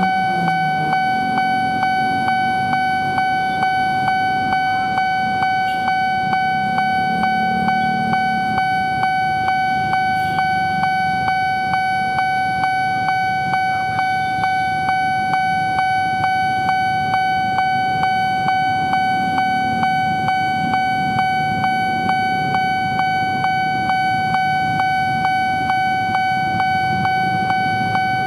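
Railway level-crossing warning bell ringing continuously: a steady ringing tone struck again in a fast, even rhythm, which signals that a train is approaching and the barriers are down. Road traffic runs underneath.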